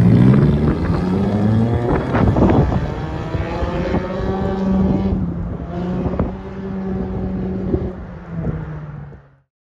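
Exhaust of a 2011 Honda CR-Z's 1.5-litre four-cylinder with the resonator deleted, revving up as the car pulls away and then holding a steady note that grows fainter as it moves off. The sound cuts off suddenly near the end.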